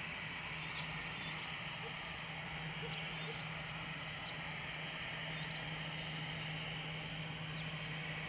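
Airbus A320 jet engines running at taxi idle as the airliner rolls along: a steady hum with an even hiss over it. A few short, high bird chirps come through several times.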